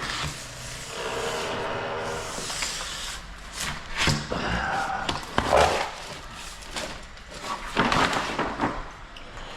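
Knocks and clatter of tools and materials being moved about and handled, with a short pitched sound about a second in.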